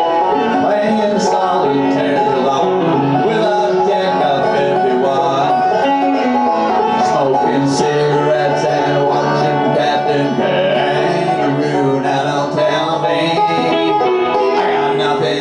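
Bluegrass instrumental passage: banjo picking with electric guitar, no singing.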